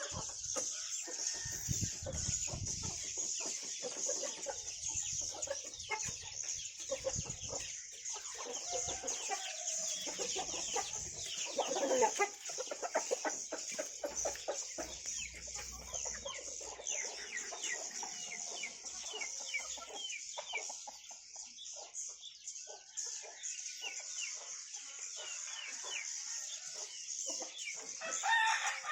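A colony of edible-nest swiftlets chattering inside a swiftlet house: a dense, continuous stream of rapid high chirps and clicks. The keeper takes the racket for the birds protesting a power cut.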